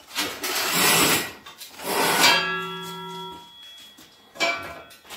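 Steel strong boy and Acrow prop clanking together: a scrape, then a sharp metal knock about two seconds in that rings for over a second like a struck tube, and a second, shorter clank near the end.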